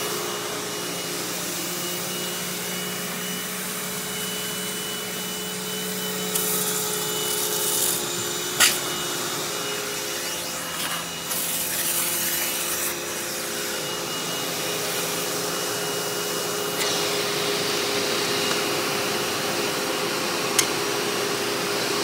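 Hoover WindTunnel Anniversary Edition upright vacuum's 12-amp motor running steadily with a constant whine, its suction going through the on-board hose to the crevice tool. A rushing hiss of air comes and goes several times, and there is a sharp click about eight seconds in.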